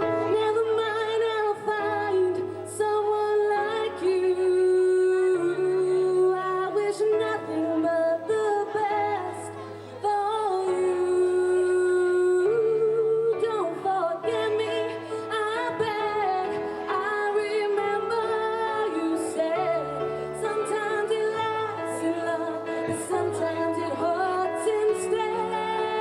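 A singer performing live with instrumental accompaniment: long held and gliding vocal notes over steady bass notes.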